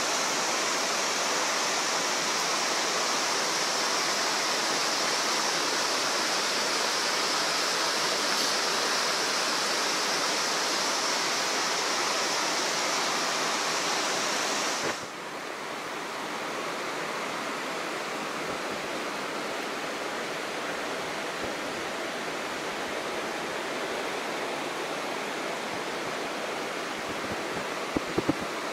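Creek water rushing steadily below, an even roar of flowing water. About halfway through it abruptly gets a little quieter and loses its high hiss, and a few light clicks come near the end.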